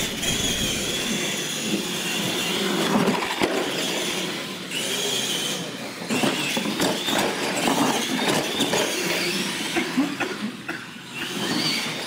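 Electric R/C monster trucks racing across a concrete floor: a high motor and gear whine that shifts in pitch with the throttle, with scattered knocks and clatter from the tyres and chassis.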